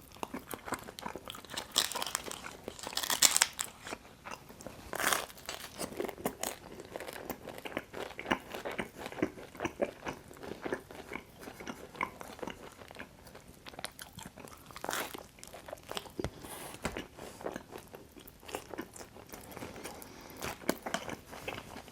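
A person biting into and chewing Detroit-style pizza close to the microphone: a steady run of small crackles and mouth clicks, with louder bites about two to three and a half seconds in and again around five and fifteen seconds.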